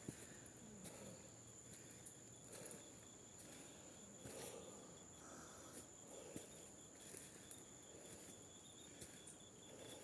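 Faint, steady high-pitched chirring of forest insects, crickets or cicadas, with a second, lower insect trill that pulses. Soft, irregular scuffs and clicks are scattered through it.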